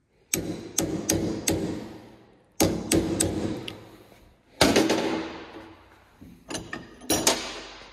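A ball-peen hammer striking a punch set into a spark plug clamped in a bench vise, in groups of sharp metallic blows that ring briefly, breaking out the plug's porcelain insulator. Several lighter knocks come near the end.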